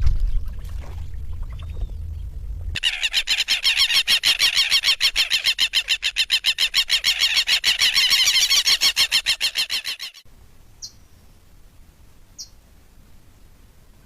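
A loud, fast pulsing trill, about eight pulses a second, lasting around seven seconds and stopping abruptly. A few short faint chirps follow.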